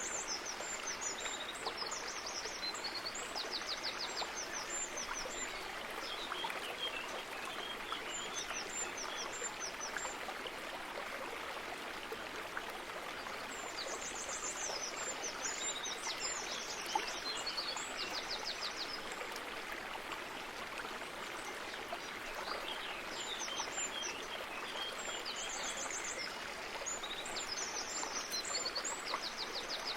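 Steady rush of running water, like a stream, with a small songbird singing a high, quick song phrase several times at intervals of a few seconds.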